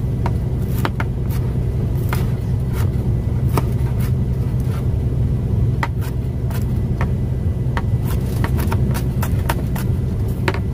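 Inside a semi-truck's cab: a steady low diesel drone, with frequent light clicks and rattles over it.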